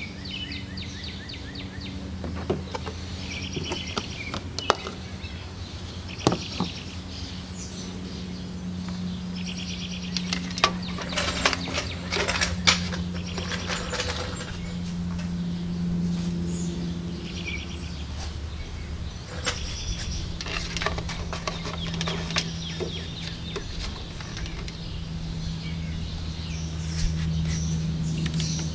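Songbirds chirping and trilling on and off over a steady low hum, with scattered sharp clicks and knocks of handling.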